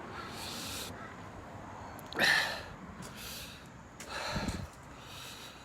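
A man's heavy breaths: three short noisy gasps and snorts, the loudest about two seconds in, as he rides out the burn of superhot chili peppers.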